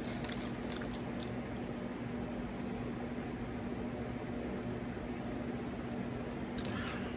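Soda drunk from a plastic bottle, with faint clicks early on and a short plastic rustle near the end, over a steady low hum in a small room.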